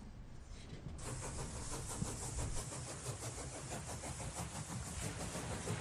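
Train running: a steady rumbling noise that sets in about a second in.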